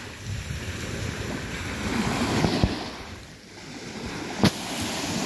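Small waves washing onto a sandy shore, with wind on the microphone. A sharp click about four and a half seconds in, and a fainter one a couple of seconds earlier.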